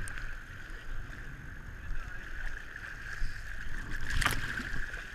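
Shallow surf sloshing and lapping close to the microphone, a low uneven rumble under a steady thin high hum, with one sharp knock about four seconds in.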